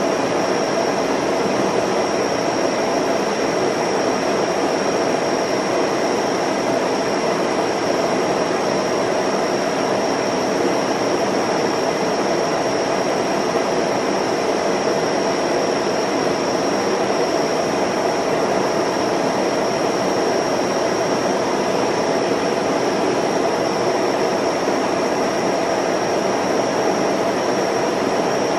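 Film projector running: a steady mechanical whir over even hiss, with a constant high whine.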